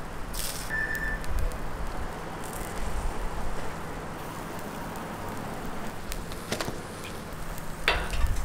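Steady low background hum, with a metal spatula scraping and clicking against the crepe griddle near the end.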